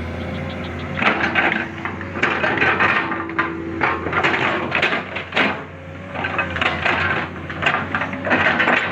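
Excavator at work: its engine runs steadily underneath irregular scraping, crackling and knocking, typical of the bucket working in soil and stones.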